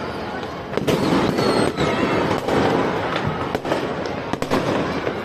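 Many fireworks and firecrackers going off at once: a dense run of bangs over continuous crackling, getting busier and louder about a second in.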